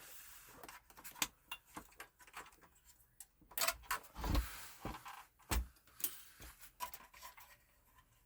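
Irregular clicks and knocks of PS4 console parts being handled and taken apart by hand, with a few louder knocks around the middle.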